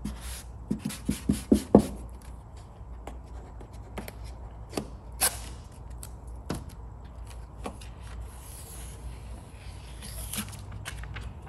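Hand application of vinyl graphic film to a vehicle body panel. A squeegee scrapes and taps against the film, with a quick run of about six light knocks about a second in and scattered clicks after. Near the end comes the soft rustle of the paper backing liner being peeled back.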